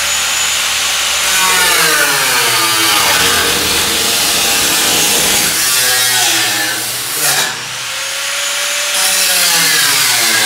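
Electric angle grinder cutting into rusted sheet steel, its motor pitch sagging under load and recovering again and again. About seven and a half seconds in it briefly comes off the cut and winds back up.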